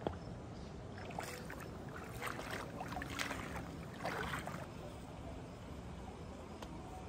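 Splashing footsteps of a person wading in sandals through a shallow river, about four splashes in a row, preceded by a single sharp click just at the start.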